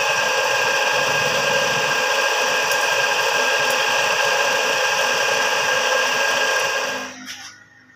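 Belt-driven cut-off saw running and grinding through a metal bar, a steady harsh grind with a high whine, that cuts off abruptly about seven seconds in.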